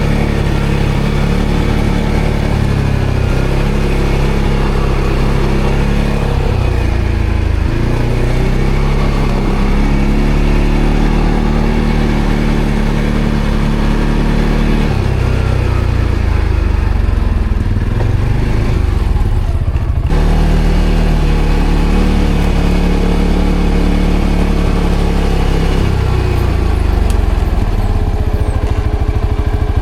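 ATV engine running under varying throttle, its note stepping up and down in pitch several times, with a brief break about twenty seconds in.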